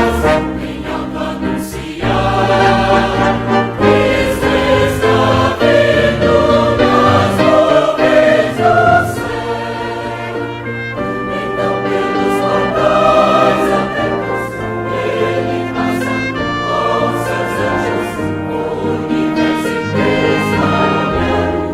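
Mixed choir singing a hymn in parts, accompanied by a brass ensemble.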